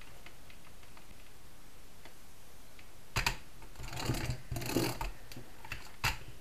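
A plastic click about three seconds in, then about a second of scraping and rattling as the scoring blade of a paper trimmer is run along its rail, scoring a fold line into a circle of scrapbook paper; another click near the end.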